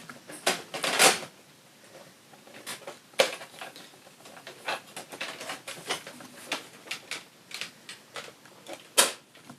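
Hard plastic toy parts clicking and knocking as the DX Tridoron's cockpit module is fitted back onto its chassis, in scattered irregular clicks with a louder snap about a second in and another near the end.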